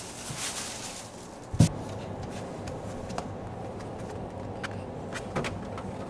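A single thump about a second and a half in, then a few light clicks of a poodle's claws on a hard floor as it steps into a pet-dryer box.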